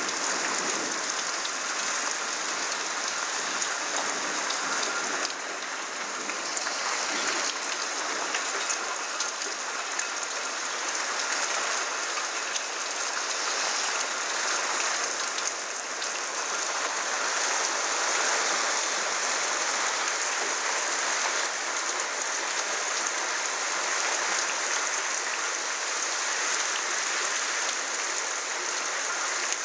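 Steady rain of a thunderstorm: a dense, even hiss with many individual drops ticking on hard surfaces, no thunder.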